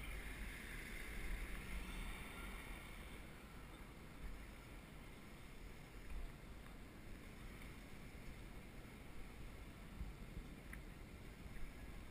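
Wind buffeting the microphone of a head-mounted camera on a moving bicycle, a steady low rumble with faint street noise under it.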